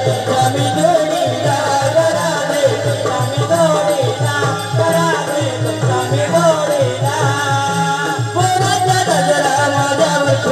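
Live Marathi folk music for a Naman gavlan: a hand drum beats a steady, quick rhythm under a sung, wavering melody.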